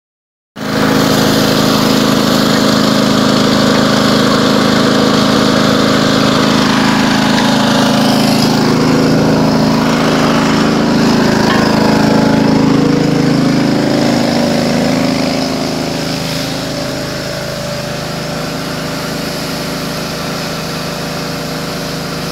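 A fire truck's engine running steadily at a constant speed. It drops somewhat in level about fifteen seconds in.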